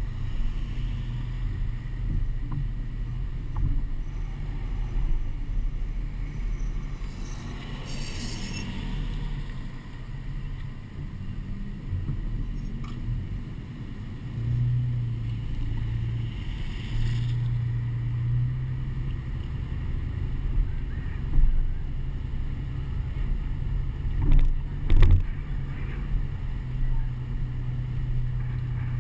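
Steady low rumble of wind and road noise on a camera strapped to the outside of a moving pickup truck, with two brief hissing swells partway through and a few knocks near the end.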